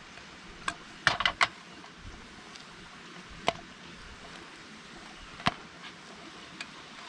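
A frying pan clacking against the metal grate of a portable gas camp stove: a quick cluster of sharp knocks about a second in, then single knocks a couple of times later, over a steady faint hiss.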